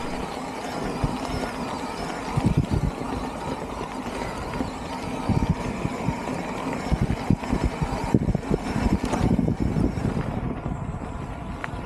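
Cube Stereo Hybrid 160 electric mountain bike ridden over bumpy ground: steady tyre and riding noise with irregular low knocks from the bumps. No rattle comes from its newly fitted RockShox Deluxe Select+ rear shock.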